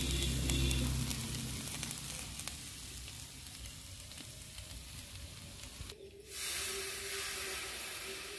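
Eel pieces with tomato and onion greens sizzling as they fry in a kadai. About six seconds in, water poured into the hot pan brings a fresh burst of sizzling with a steady pouring note under it.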